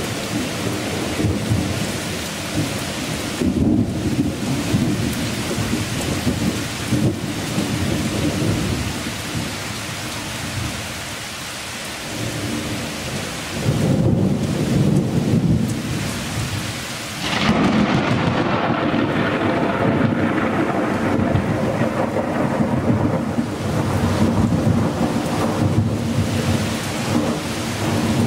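Heavy rain pouring down in a thunderstorm, with thunder rumbling underneath. The rumble swells about fourteen seconds in and again, louder and longer, a few seconds later.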